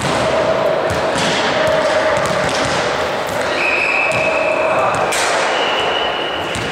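Echoing sports-hall din of volleyballs being struck and bouncing on a hard court floor, with a sharp hit about five seconds in.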